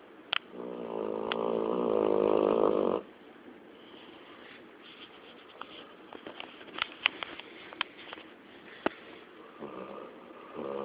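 Snoring: one loud snore, a couple of seconds long, starting about half a second in, and a fainter one near the end, with scattered small clicks in between.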